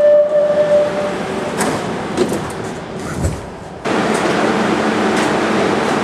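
Barcelona Metro Line 10 train's door-closing warning tone, a steady beep that stops about a second in. Then a few clicks and a low thud come as the sliding doors shut. From about four seconds in, a steady rush of train running noise starts abruptly.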